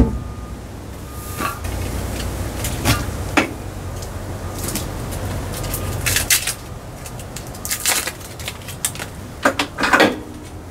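Hands-on work noises from hooking up a hydronic heater's lines: a sharp knock at the start, then scattered clicks, scrapes and rustles as flexible tubing and fittings are handled, over a steady low hum.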